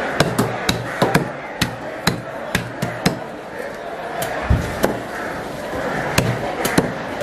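Irregular sharp chops of a fish-cutting knife striking wooden chopping blocks, about one to two a second, over steady background noise.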